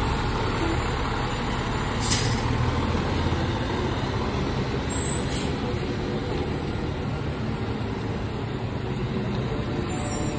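Heavy fire trucks' diesel engines rumbling as they drive past and pull away, the rumble heaviest in the first few seconds, with a short sharp hiss of air about two seconds in.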